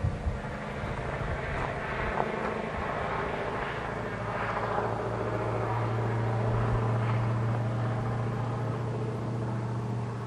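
Union Pacific 844 steam locomotive, with E9 diesel 6936 in the train, starting away in the distance. A steady low locomotive drone strengthens about halfway through.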